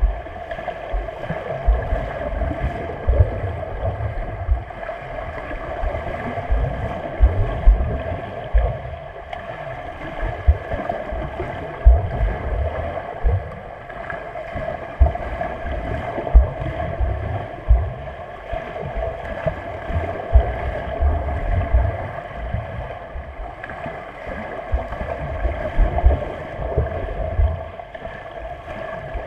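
Muffled swimming-pool water noise: a steady hum under irregular low thumps and sloshing.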